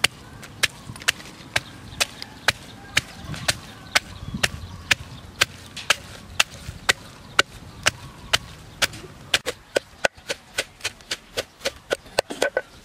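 Wooden pestle pounding red chillies and garlic in a wooden mortar: sharp, regular knocks about two a second, quickening to about three a second near the end as the mix turns to paste.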